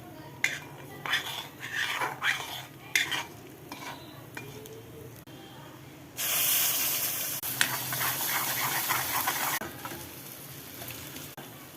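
A spoon or ladle scrapes and knocks against a pan of frying curry as it is stirred. About six seconds in, a loud sizzle starts suddenly and lasts about three seconds before easing back to a quieter frying hiss.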